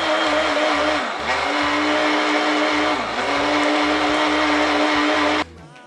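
Personal blender running at full speed, blending juice with water. Its motor holds a steady whine that dips briefly twice as the load shifts, then stops abruptly near the end.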